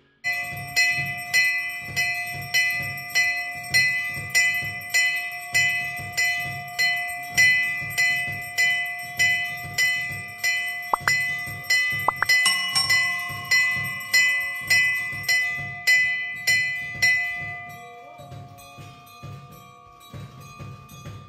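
Bells struck in a steady rhythm, about two strikes a second, each with a low thud beneath, their tones ringing on between strikes. About eighteen seconds in the strikes stop and a fainter ringing is left.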